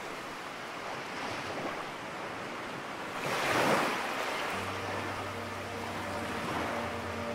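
Ocean surf washing, with one louder wave surge about three seconds in. About halfway through, a low held note of soft background music comes in beneath the surf.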